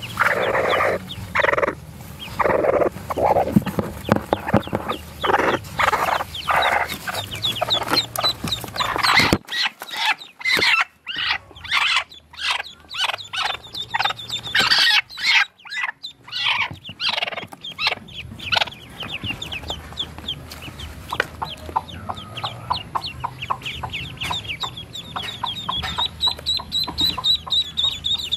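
Broody hen clucking in short, repeated calls for the first several seconds. After a cut, many brief high-pitched peeps from ducklings take over and build into a steady chorus near the end.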